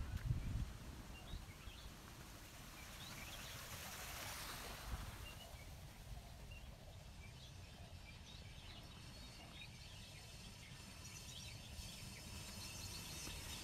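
Quiet garden ambience: birds chirping here and there over a faint steady hiss, with a brief swell of hiss about four seconds in.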